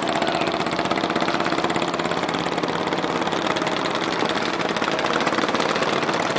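A small boat engine running steadily, with a fast, even chugging.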